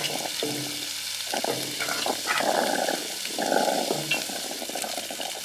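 Chopped onion and leek scraped off a wooden chopping board into a hot saucepan of olive oil, sizzling in short spells as each lot lands.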